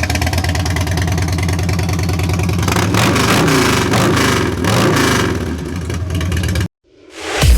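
2007 Harley-Davidson Dyna Street Bob's Twin Cam 96 V-twin running just after starting, settling at idle and then revved, the pitch rising and falling through the middle seconds. The sound cuts off suddenly near the end.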